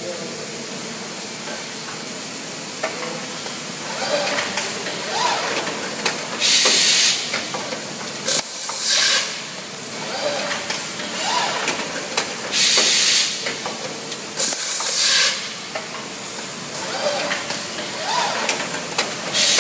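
Automated bag-making machine running with a steady mechanical clatter. About five short, loud bursts of hiss come a few seconds apart: compressed air venting from its pneumatic actuators as they cycle.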